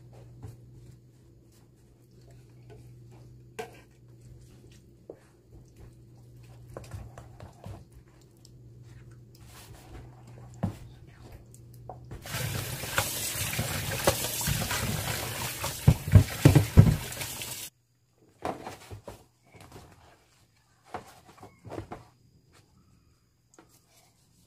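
Wooden spoon clicking and scraping in a glass bowl while chili paste is mixed. About halfway through comes a rush of running water, like a tap, lasting about five seconds, with a few heavy knocks before it cuts off sharply. Scattered light clicks follow.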